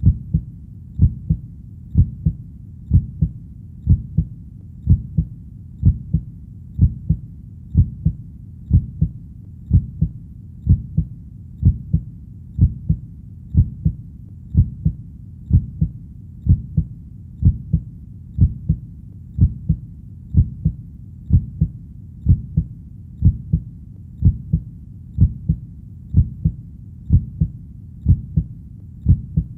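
A heartbeat, steady and regular at about one beat a second, each beat a low double 'lub-dub'.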